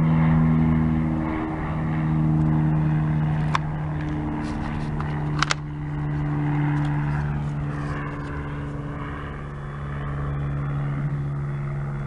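A steady engine drone that swells and fades slowly, with two sharp clicks about two seconds apart near the middle.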